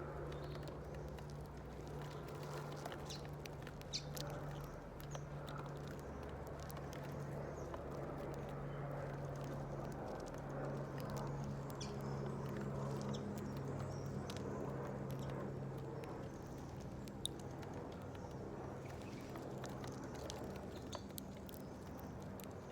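Small birds at a seed feeder: scattered light taps, the sound of pecking at seeds, and faint chirps over a steady low background hum.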